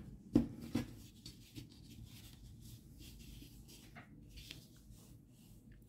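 Hands handling and arranging a crocheted yarn toy on a tabletop: two light knocks near the start, then faint rubbing of yarn with a few small ticks.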